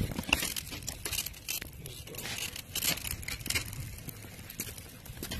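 Rustling, crackling handling noise from a hand-held phone rubbing against clothing while its holder walks, with irregular clicks and scrapes.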